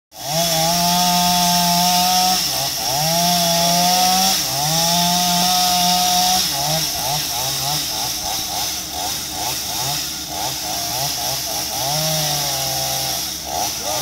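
Chainsaw cutting mango tree limbs, running at full throttle in three long runs of about two seconds each, then revving in quick short blips for several seconds, then one more long run near the end.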